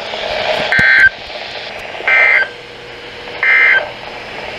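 Three short bursts of NOAA Weather Radio's SAME digital data tones, the End of Message code that closes an alert, evenly spaced about one and a third seconds apart over steady radio hiss.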